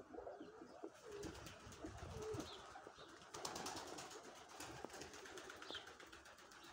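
Faint cooing of domestic pigeons, with a few short high bird chirps. From about a second in there is a run of rapid rustling clicks.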